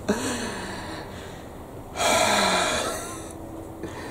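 A man's short vocal sound at the start, then a long exhaled sigh about two seconds in: dismay at a wiper rubber refill that does not fit.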